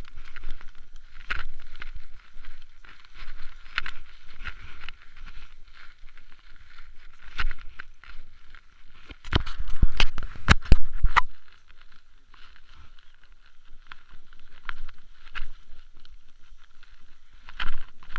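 Mountain bike riding over rough ground, heard through a bike- or body-mounted action camera: steady rushing noise with scattered rattles and knocks from bumps, and a loud cluster of bangs and rumble about ten seconds in.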